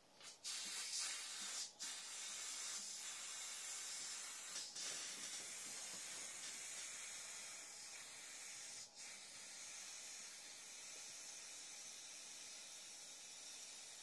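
Steady hiss of air through the valve of an inflatable T-rex toy held to the mouth, broken briefly about three times.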